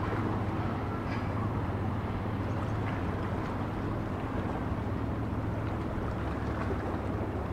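A boat's engine running steadily, a constant low hum over an even rushing noise.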